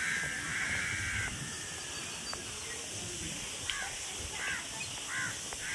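A crow cawing: a long harsh call at the start, then three short caws in quick succession in the second half, over a steady outdoor hiss.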